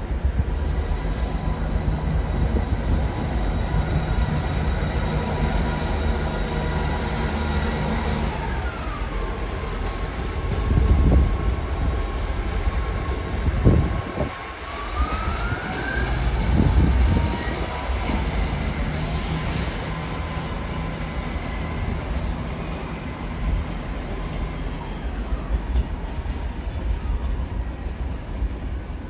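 Northern class 158 diesel multiple unit departing, its diesel engines running with a steady low drone. Partway through, a whine drops in pitch and later rises again, while the rumble swells several times as the train passes.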